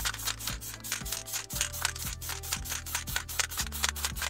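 Background music: a fast, steady rattling beat over a changing bass line.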